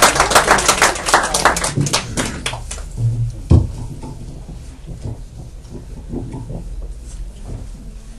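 An audience's applause dying away over the first two to three seconds, then a single loud thump about three and a half seconds in, followed by quiet room noise with faint voices.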